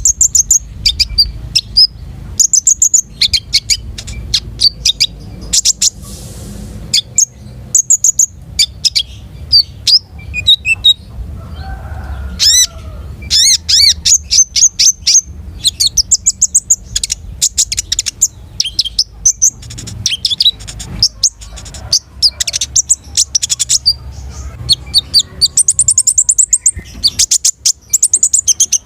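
A konin songbird singing non-stop: a rapid string of short, high chirps and whistled notes, with quick trills that sweep up and down, and a fast run of notes near the end.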